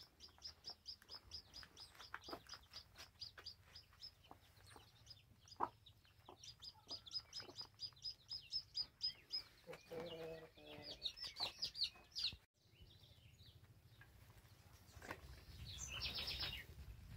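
Newly hatched chicks peeping in a fast, even series of short high peeps, about five a second, with a few lower clucks about ten seconds in. The peeping stops partway through, leaving quieter outdoor sound with a brief run of chirps near the end.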